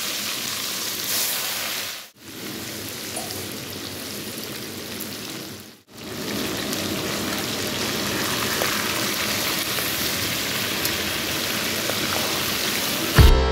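Pieces of catla fish deep-frying in hot mustard oil in a kadhai: a steady, dense sizzle and crackle, cut off briefly twice. Acoustic guitar music comes in at the very end.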